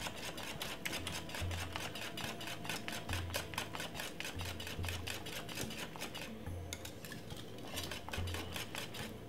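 Wire whisk beating thick cornmeal porridge in a stainless steel pot: a rapid run of clicks and scrapes as the wires knock against the pot, with a brief lull about six and a half seconds in.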